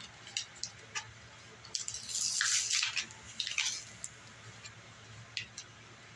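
Plastic packaging of a pack of AAA batteries being handled and worked open: scattered sharp clicks, with a crinkling rustle about two to four seconds in.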